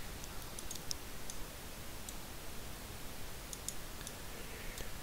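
A few faint, sharp computer mouse clicks, clustered in the first second and a half and again later, over a low steady background hiss.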